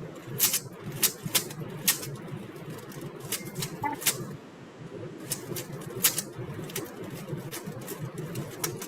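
Rubik's cube layers being turned fast, giving irregular plastic clicking and clacking over a steady background hum.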